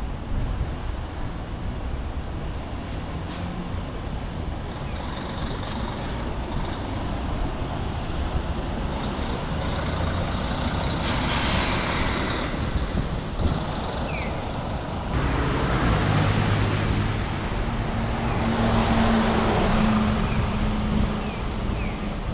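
Buses and traffic passing on a wet street: a coach drives by with tyre hiss rising about halfway through, then after an abrupt change a city route bus approaches with its diesel engine running.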